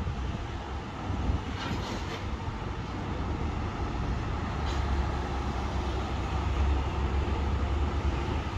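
Metro Trains Melbourne X'Trapolis 100 electric suburban train approaching along the platform: a steady rumble that grows gradually louder, with a few faint clicks.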